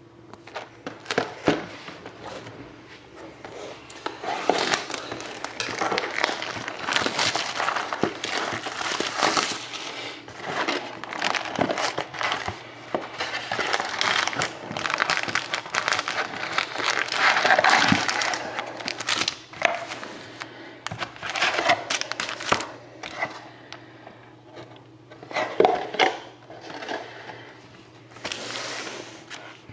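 Crinkling and tearing of the plastic shrink wrap on a sealed box of trading cards as it is unwrapped. The crinkling is broken up by sharp crackles and clicks and comes in uneven bursts, loudest in the middle and fading for a while near the end.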